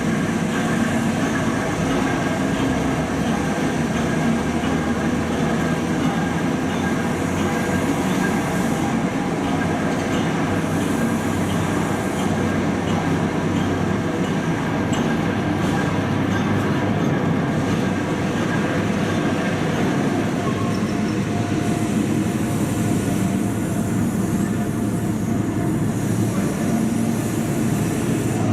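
Train running with a steady, continuous engine drone and hum, its pitch shifting slightly about two-thirds of the way through.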